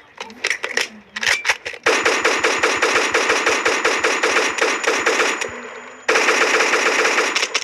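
Automatic gunfire: a few short bursts, then a long sustained burst of rapid shots lasting several seconds, a brief pause, and another long burst near the end.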